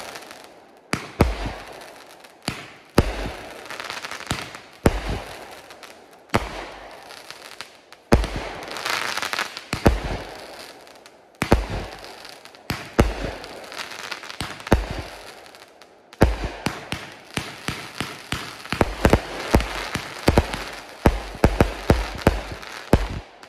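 500g consumer fireworks cake firing shot after shot, each aerial break a heavy, thunderous bang, with crackle between the bangs. The shots come every second or two, then quicken into a rapid barrage over the last few seconds.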